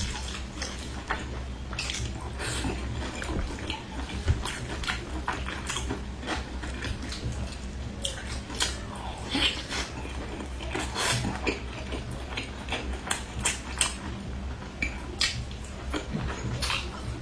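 Eating-show table sounds: irregular clinks and clicks of utensils against dishes, with biting and chewing, over a steady low hum.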